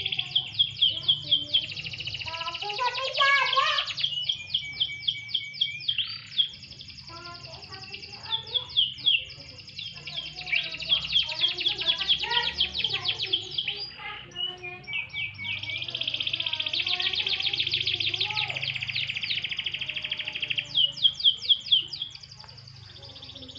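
Domestic canary singing: long rolling trills and fast runs of repeated high chirps, broken by short pauses.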